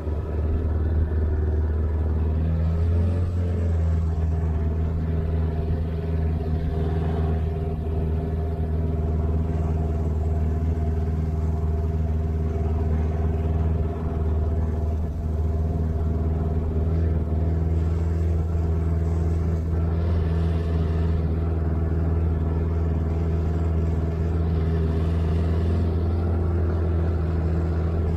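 An engine running steadily at constant speed: a low, even hum whose pitch does not change.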